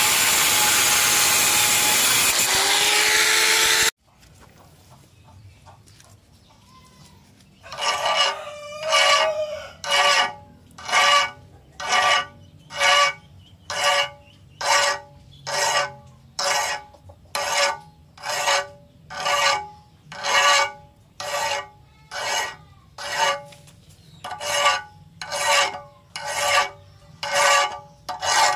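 An angle grinder's disc grinding the edge of a steel crescent cut from a truck leaf spring, stopping suddenly about four seconds in. After a few quiet seconds, a hand file rasps back and forth across the clamped steel in even strokes, about one a second, until the end.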